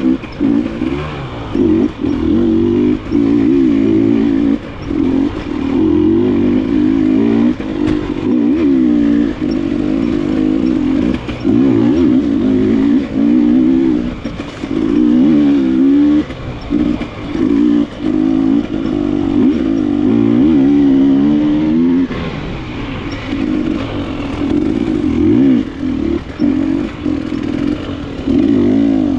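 KTM enduro motorcycle engine revving up and dropping back over and over as the throttle is opened and shut, with frequent short breaks in the pitch.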